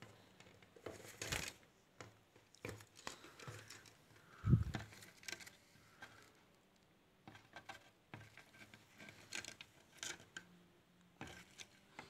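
Indian ringneck parakeet's beak tapping and scraping and its claws scratching on a mirror and wooden cabinet: scattered small clicks and scrapes, with one louder low thump about four and a half seconds in.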